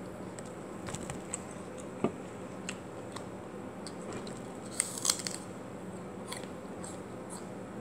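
Biting into and chewing a raw apple close to the microphone: a handful of separate crisp crunches, the loudest cluster about five seconds in, over a faint steady hum.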